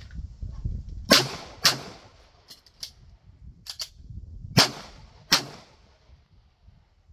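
Four handgun shots: two in quick succession about half a second apart, then about three seconds of lighter clicks and clacks as the pistol is reloaded and the slide racked by hand, then two more shots. The slide had to be racked because the empty magazine did not lock it open.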